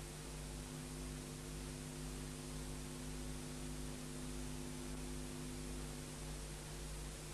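Faint steady electrical hum with a few steady low tones over a background hiss, typical of mains hum in a recording.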